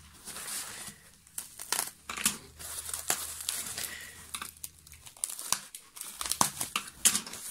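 Plastic packing wrap (bubble wrap and foam sheet) crinkling and tearing as hands pull it apart and peel back a taped flap, in irregular crackles and rustles.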